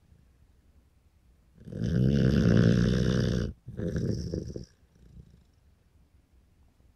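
A sleeping dog snoring: one long snore of about two seconds starts about a second and a half in, followed straight away by a shorter one.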